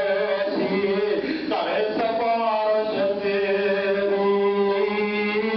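A man's voice chanting in long, drawn-out melodic phrases, a sung religious recitation rather than ordinary speech.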